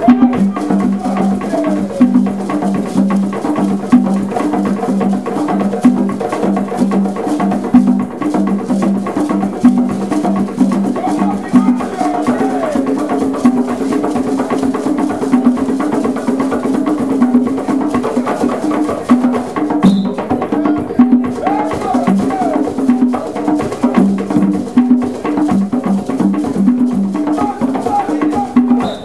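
An ensemble of East African drums playing a fast, steady interlocking rhythm: tall hand drums struck by hand and a drum laid on a stand beaten with sticks.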